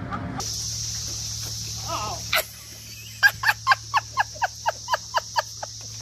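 A rapid run of about eleven short calls, each falling in pitch, about four a second, from an animal, after a single sharp knock.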